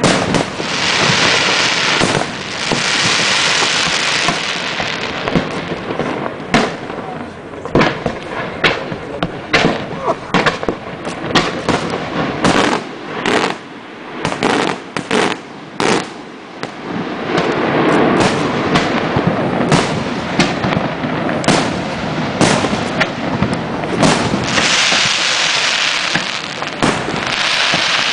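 Aerial fireworks display: a rapid series of shell bursts with sharp bangs, and stretches of dense hissing and crackling noise from the bursting effects. The bursts thin out to scattered single bangs around the middle, then build again toward the end.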